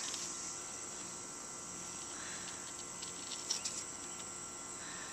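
Steady high-pitched insect chorus, the kind summer crickets make, with a few faint ticks about three and a half seconds in.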